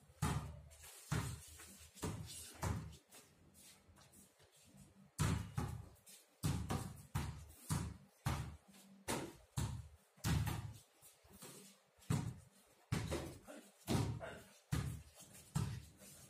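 Basketballs being dribbled on a paved courtyard floor: sharp, irregular thuds, sometimes a few in quick succession as more than one ball bounces at once.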